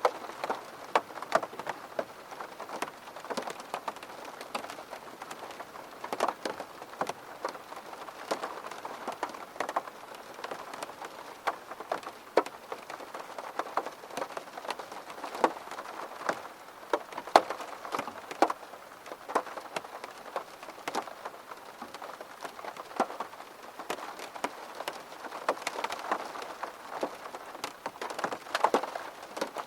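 Steady rain, with many close drops tapping sharply on a hard surface several times a second over an even hiss.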